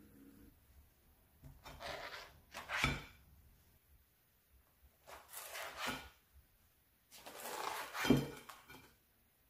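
Toasted bread slices slid off a spatula onto a ceramic plate three times, each a short scrape ending in a knock.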